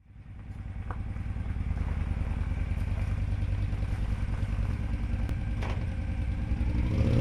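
Cruiser motorcycle engine running, a steady low pulsing rumble. It fades in at the start and grows louder near the end as the bike begins to move off.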